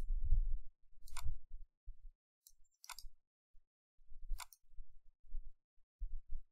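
Computer mouse clicking about five times, a second or more apart, as edges and menu items are picked in a CAD program, over a faint low rumble.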